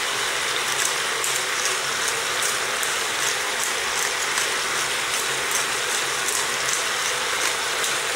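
Hand pepper mill grinding in short ratcheting clicks over a steady sizzle of courgettes, carrots, peppers and smoked sausage frying in a Moulinex Cookeo multicooker pot.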